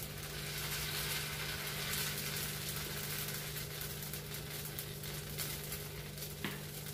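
Dosa batter sizzling on a hot tawa as it is poured and spread in circles with a ladle, a steady hiss over a low steady hum. A short click near the end.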